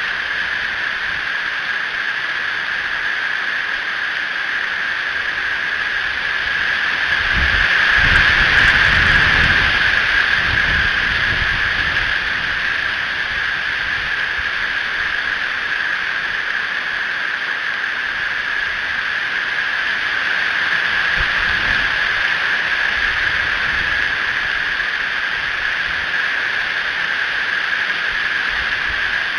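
Steady rain hissing during a thunderstorm, with a low rumble of thunder swelling about seven seconds in and fading over a few seconds, and a fainter rumble later on.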